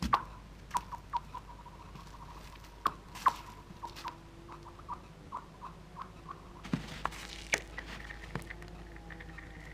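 Stones skipped onto thin sea ice: sharp hits followed by quick runs of high, ringing chirps as they bounce and slide across the ice, with a faint ringing tone lingering between them.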